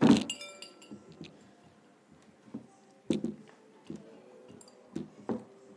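Ceramic plate clinking as cookie dough is kneaded by hand in it: a few sharp clinks, the loudest right at the start and others about three and five seconds in, with soft dough squashing between.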